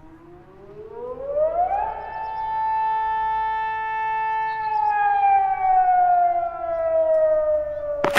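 Civil defense warning siren winding up in pitch over about two seconds, holding a steady wail, then slowly winding down. A sharp click comes at the very end.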